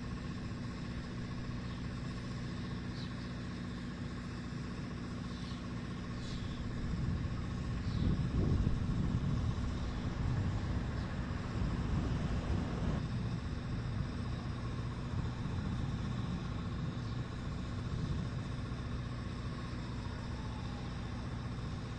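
Outdoor city ambience of road traffic rumbling over a steady hum, swelling louder as vehicles pass about a third of the way in and again near the middle.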